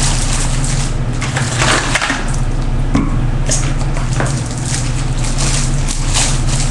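Cosmetics packaging rustling and crinkling in irregular short crackles as items are handled and taken out of a shipping box, over a steady low hum.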